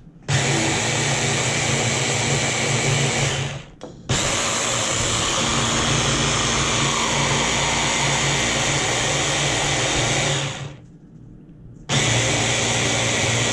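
Stick blender with a chopper bowl attachment pureeing chopped strawberries, its motor running steadily in three stretches: about three seconds, a brief stop, about six seconds, then a pause of about a second before it starts again.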